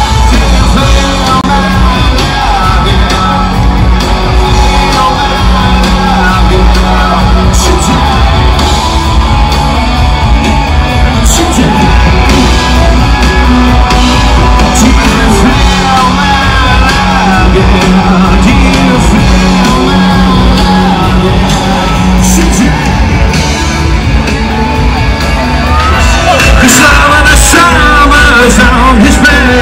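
A live rock band playing through a loud outdoor PA: electric guitars, bass and drums with a lead singer, the singing standing out more near the end.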